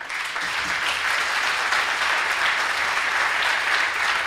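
Lecture-hall audience applauding steadily.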